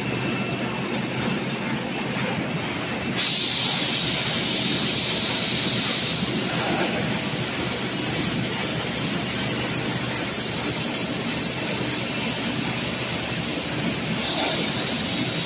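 Snack process-line machinery running, with octagonal seasoning drums turning: a steady, rumbling mechanical din. A steady hiss joins about three seconds in and stays.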